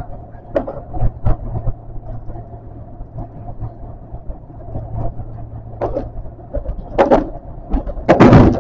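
Osaka Metro 400 series subway train running through a tunnel, heard from inside the car: a steady low rumble with a faint hum. Several short wheel knocks are scattered through, and a louder rushing clatter rises near the end.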